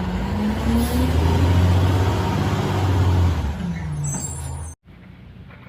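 Truck engine sound revving: its pitch climbs, holds, then drops back, with a short hiss near the end, and it cuts off suddenly about five seconds in.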